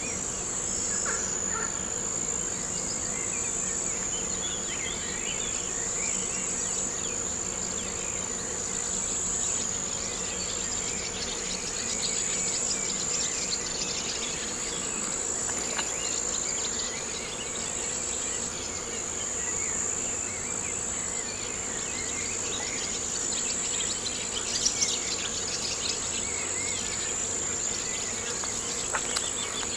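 Steady high-pitched insect chorus, like crickets, with faint bird chirps scattered through it and a couple of short clicks near the end.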